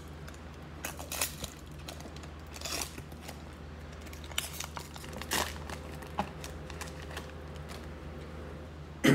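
Plastic wrapper of a trading card value pack crinkling and tearing as it is opened, in scattered rustles, with one sharp knock near the end.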